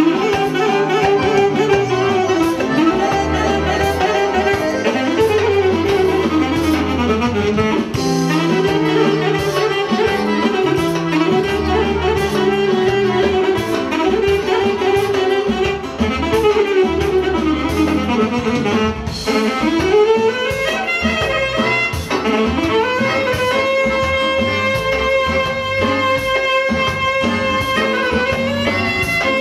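Instrumental band music: a wind instrument leads a winding melody with pitch bends over bass and a steady drum beat. It holds one long note near the end.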